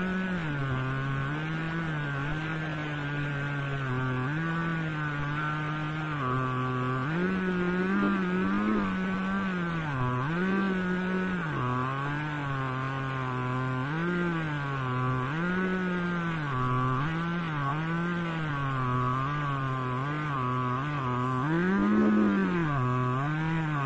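Two-stroke chainsaw ripping a log lengthwise in a chainsaw mill, running under load, its engine pitch sagging and recovering every second or two as the cut is pushed along. Near the end it briefly revs higher and louder.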